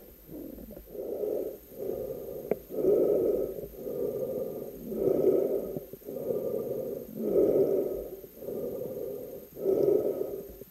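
Spearfisher breathing through a snorkel, picked up by the camera underwater: slow, regular in-and-out breaths, about one full breath every two seconds.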